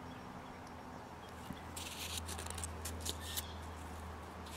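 Faint scraping and rustling, as of something being handled, in a short cluster around the middle, over a steady low hum.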